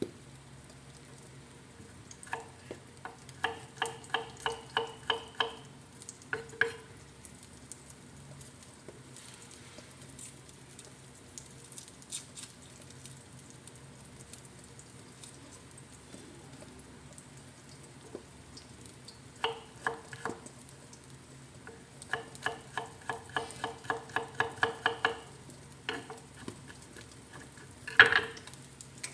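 Egg omelette frying in a wok with a faint, steady sizzle. Twice it is broken by runs of quick pitched ticks, about five a second for two seconds or so each, and there is a sharp knock just before the end.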